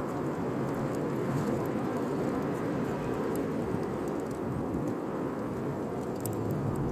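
Bonfire burning: a steady low rush of flames with scattered faint crackles and pops of burning wood, a few together near the end.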